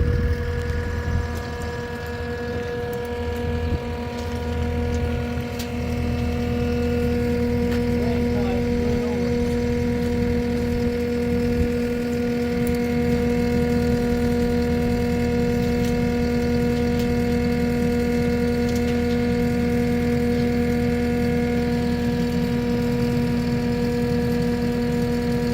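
A vehicle engine running steadily with an even, unchanging hum, a little louder after about six seconds.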